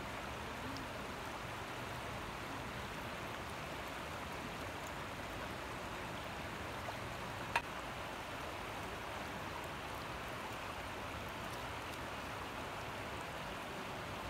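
Steady wash of water along a gravel shore, an even rushing hiss, with one sharp click about seven and a half seconds in.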